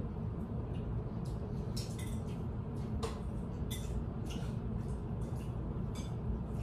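Chopsticks clicking and tapping against bowls and plates during a meal: a scatter of short, light clinks, a few each second, over a steady low room hum.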